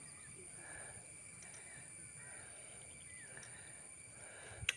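Faint outdoor background with a steady high-pitched drone, broken by one sharp click near the end.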